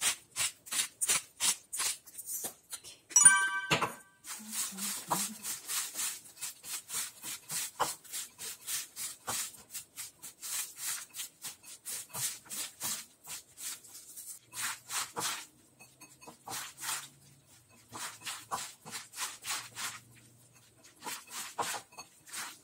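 Hands tossing and squeezing sliced onions with salt and sugar in a ceramic bowl: a wet, crisp rustle repeated about two to three times a second, with a few short pauses, working the salt and sugar in until they dissolve. A short ringing chime sounds about three seconds in.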